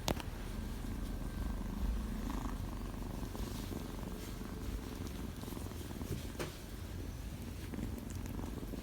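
A kitten purring steadily, with a sharp click just after the start and another about six and a half seconds in.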